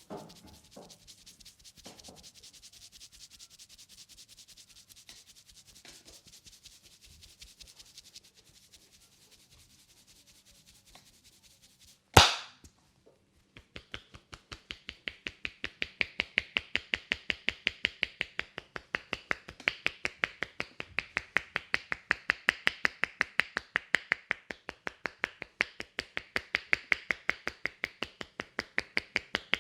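Head massage: hands rubbing over the scalp and hair with a faint hiss, then one loud sharp crack about twelve seconds in. From about two seconds after that, fast even tapping on the head runs at about four to five taps a second.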